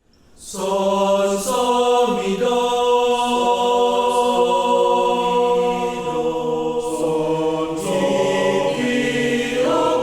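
Male choir singing unaccompanied. The voices fade in at the start and hold long, sustained chords that shift to new notes every second or two.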